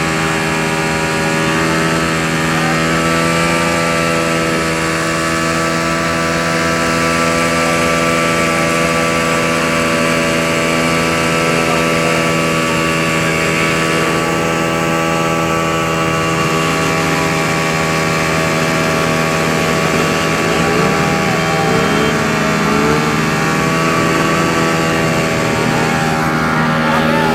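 Honda motorcycle engine running loud and held at one steady, unchanging note, with no rise or fall in revs. A brief wavering extra sound joins in around two-thirds of the way through.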